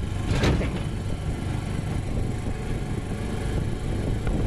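Car driving along a road, heard from inside the cabin: a steady low engine and road rumble, with a brief louder rush about half a second in.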